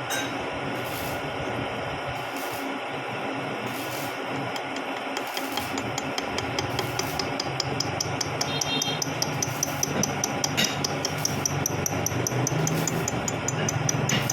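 Vertical milling machine running. About halfway through a low hum and rapid, regular ticking set in.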